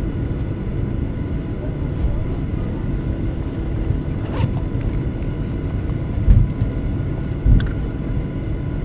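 Cabin noise of a Boeing 737-900 on the ground after landing: a steady low rumble with a faint steady whine of its CFM56 engines, and two short low thumps about six and seven and a half seconds in.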